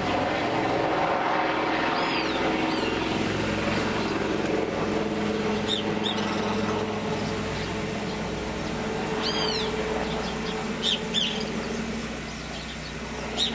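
An engine running steadily at idle, with birds chirping now and then over it.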